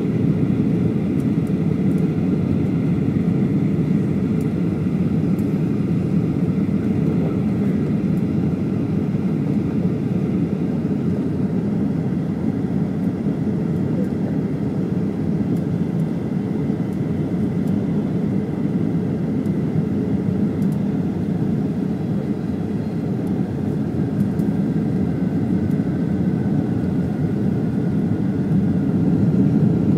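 Steady low cabin noise inside a Boeing 737-800, a mix of the CFM56 jet engines and airflow around the airliner, with a faint steady whine above it.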